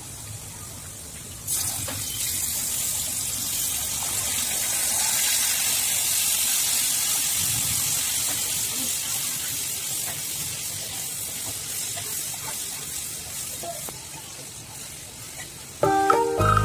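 Hot oily masala gravy in a pan sizzling: about a second and a half in, liquid is poured in and stirred, setting off a sudden loud hiss that slowly dies down as it mixes in. Background music starts near the end.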